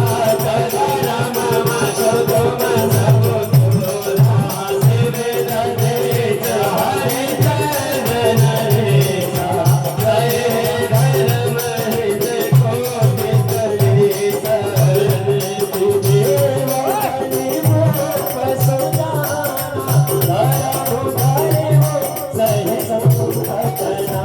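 Instrumental interlude of Indian devotional folk music: a steady drone, a wandering melody line, and a repeating low drum beat with a shaker-like rattle.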